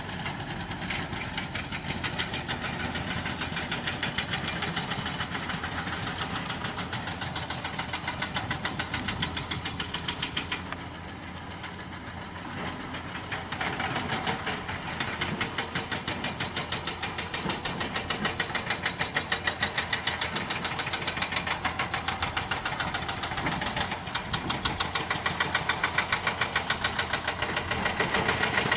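Heavy diesel engine running steadily with a fast even pulse. It drops quieter about eleven seconds in, then comes back louder and stronger.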